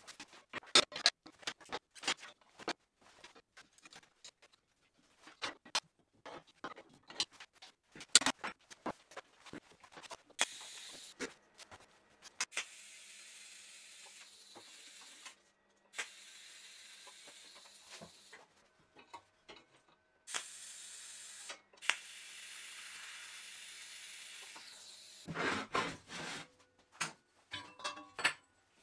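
Clanks and knocks of steel tube parts and clamps handled on a steel welding table, then a TIG welding arc hissing in five stretches of one to four seconds each, stopping and restarting, followed by more loud metal clanks near the end.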